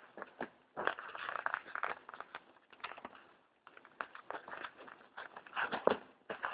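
Packaging being torn and crinkled open by hand without scissors: irregular bursts of crackling and ripping, with a short pause a little past halfway.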